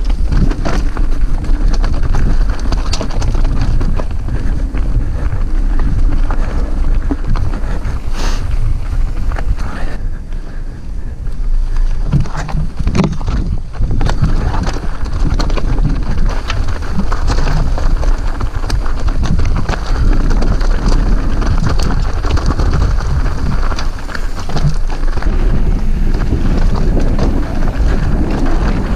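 Mountain bike riding down a rocky, gravelly trail, recorded from a bike-mounted action camera: wind buffeting the microphone over the crunch of tyres on loose stones and the rattle of the bike over rocks.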